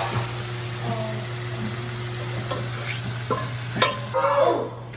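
Food sizzling in oil in a frying pan, a steady hiss that cuts off about four seconds in. A few sharp clicks come just before it stops, and a low steady hum runs underneath.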